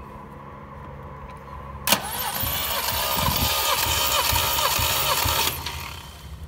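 Alfa Romeo Montreal's V8 cranked over by its starter motor without firing, an even churning that begins with a click about two seconds in and stops after about three and a half seconds. The engine is being spun to pump up a compression gauge in one right-bank cylinder, which comes up to about 165 psi.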